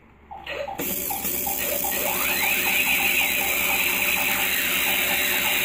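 Harsh, distorted electronic noise starts about a second in and holds steady and loud, with squeals that sweep up and down over a fast rattling pulse.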